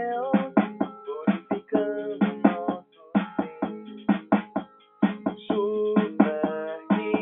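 Music: a plucked string instrument playing notes and chords, with frequent sharp percussive attacks.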